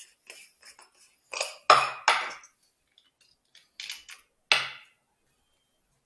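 Metal microscope parts clinking and tapping as an objective lens is handled and screwed into the nosepiece of an inverted microscope: several short, sharp clinks, loudest about two seconds in and again near four and a half seconds.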